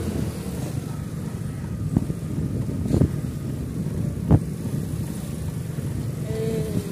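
Motorcycle engine running steadily on the move, with road and wind noise, and a few sharp knocks about two, three and four seconds in, the last the loudest.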